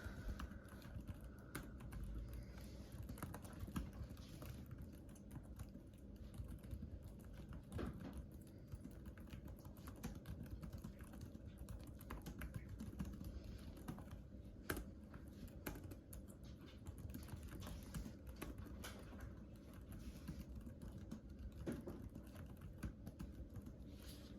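Typing on a computer keyboard: a continuous, irregular stream of key clicks.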